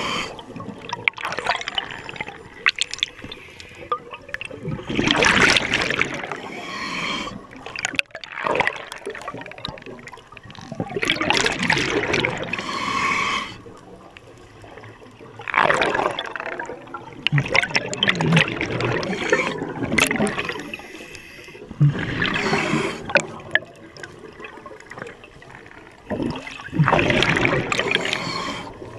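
Scuba diver breathing through a regulator underwater: exhaled bubbles rush and gurgle out in loud bursts every four to six seconds, with quieter stretches between breaths.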